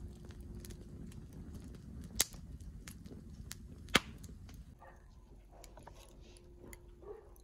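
Wood fire crackling, with two loud sharp pops about two seconds apart; the crackling grows quieter near the end.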